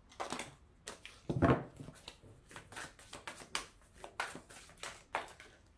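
Tarot cards being handled and shuffled: a quick, irregular string of flicks and snaps of card stock, with one louder knock about a second and a half in.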